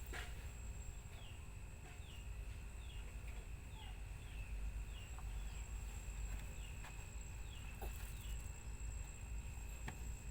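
A bird chirping over and over, short falling chirps about twice a second, over a steady low rumble and a thin steady high tone, with a few sharp clicks.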